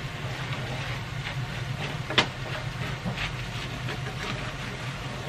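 Wooden chopsticks tapping and scraping against a frying pan while breaking up scrambled egg into fine crumbs, with a sharper tap a little past two seconds in, over a steady low hum and hiss.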